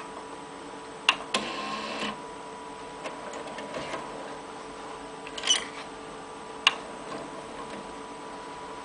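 Sony DAT deck's cassette transport mechanism working: sharp mechanical clicks and a short motor whir about a second in, then more clicks as the cassette is ejected and loaded again, over a steady faint hum.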